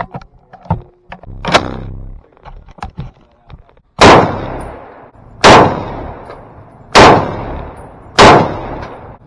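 An M1 Garand rifle firing .30-06 M2 ball ammunition: four loud semi-automatic shots about a second and a half apart, each echoing off the range. Before the shots come a few light clicks from handling the rifle and one sharp crack about a second and a half in.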